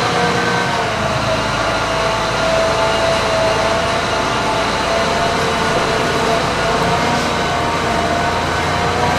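A steady mechanical drone: several held whining tones over an even noisy hum.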